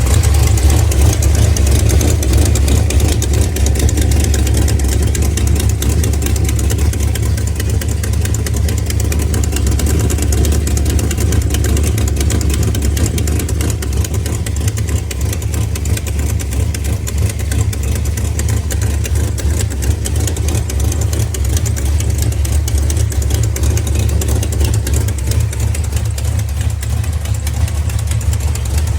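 Engine idling steadily with a fast, even ticking or knocking that keeps time with the engine. The owner cannot tell whether it is a leaking header gasket, a hole in the exhaust header, lifter tick, rod knock or a spun bearing.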